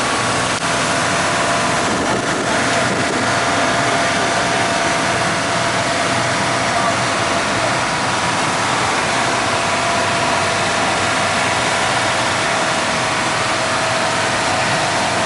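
The Mekong slow boat's engine running steadily under way, a constant drone with a faint steady whine, heard from inside the open passenger cabin.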